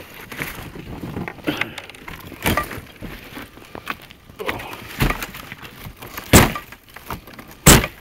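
Crusted snow and ice cracking and crunching as the snow-laden lid of a plastic recycling bin is forced open and the snow knocked off. There is a run of sharp cracks and knocks, and the two loudest come near the end.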